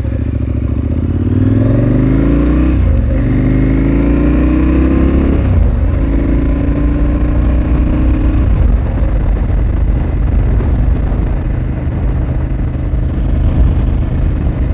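KTM 1290 Super Adventure R's V-twin through its Akrapovič slip-on exhaust, pulling away hard and rising in pitch, with upshifts about three and five and a half seconds in. After that it settles into a steady cruise, with wind noise.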